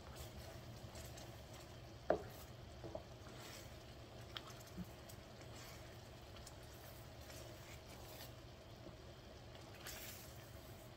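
Thick coconut-milk-and-brown-sugar latik boiling in a skillet as a wooden spoon stirs it, soft squishing and bubbling. A sharp knock about two seconds in, then a few lighter ticks.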